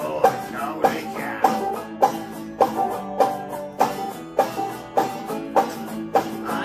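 Instrumental passage of a banjo and an electric guitar playing together in a country-folk style, with strong strummed accents on a steady beat a little under twice a second.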